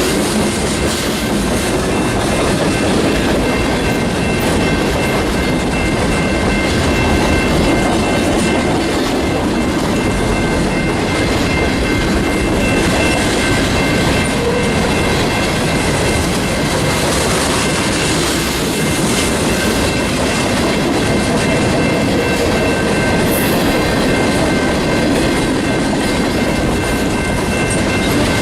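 Freight train's cars rolling past at close range, wheels clacking over the rail joints, with a thin steady high squeal from the wheels on the rails.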